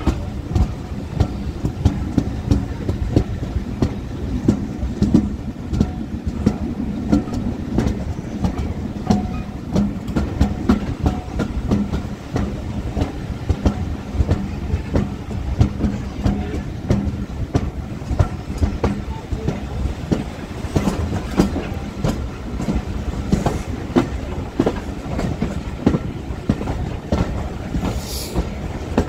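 Heritage diesel-hauled train running steadily over jointed rails: a continuous rumble with rapid clickety-clack from the wheels. A brief high squeal comes near the end.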